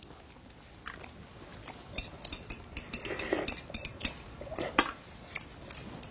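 Light clinks and clicks of tea glasses, saucers, plates and cutlery during a meal: scattered at first, then a cluster of quick clicks in the middle and one sharper click near the end.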